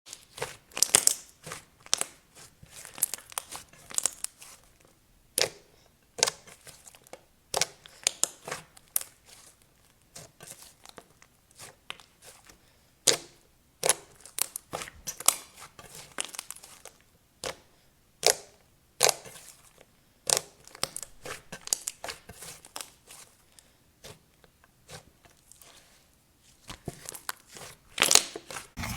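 Clay slime being pressed and stretched by hand, making irregular sharp clicks and crackles, some in quick clusters and some single, with quiet gaps between.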